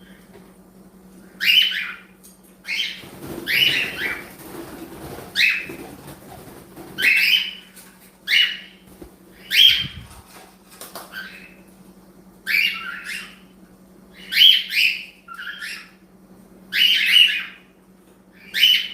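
Pet cockatiel calling over and over: short, loud squawking chirps, about one a second, some coming in quick pairs.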